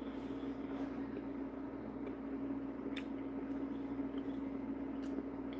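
Steady low hum with a faint hiss, with two light clicks of a fork against a plate, one about three seconds in and one near the end.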